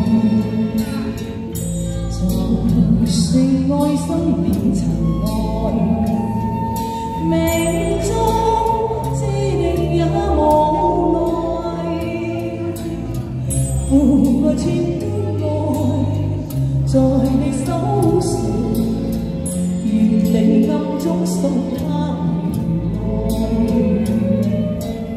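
A woman singing a Chinese pop song into a handheld microphone over a backing track with bass and drums, played through a small street PA system.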